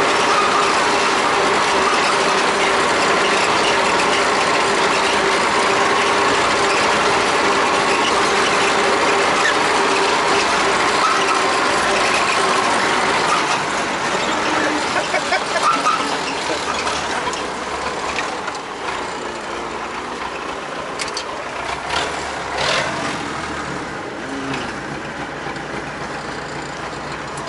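MTZ-80 tractor's four-cylinder diesel running under way, with steady mechanical rattling. About halfway through the engine eases off and the sound gets quieter, with a few clanks.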